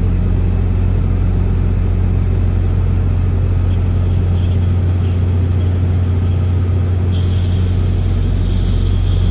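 Heavy truck's diesel engine idling steadily under the cab, a constant low hum. About seven seconds in a loud air hiss starts up and keeps going: air exhausting from the cab air bags through the levelling valve as it is set lower to drop the cab.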